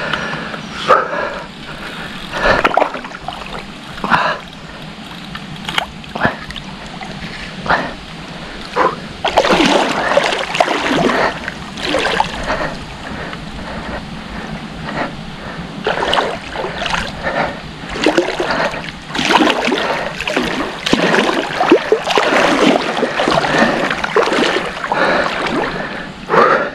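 Shallow river water splashing and sloshing in many irregular bursts, busier in the second half.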